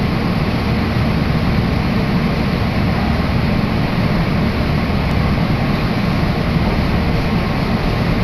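Meitetsu Hiromi Line train running, heard from inside the passenger car: steady low wheel-and-motor noise with a fainter hiss above it.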